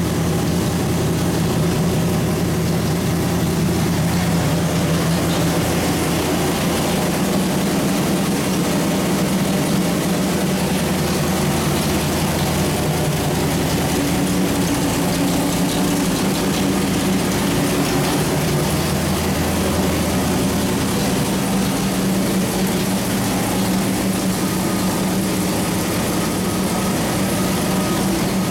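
A 600 hp small-block Chevrolet 427 V8 runs steadily on an engine dyno. It holds one speed without revving, and its pitch wavers only slightly.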